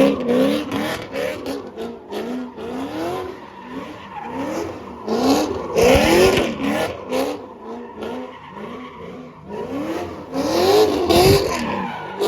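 Supercharged V8 of a Dodge Hellcat, loud and revved over and over in quick blips. Its pitch rises and falls again and again, with a noisy hiss over the top.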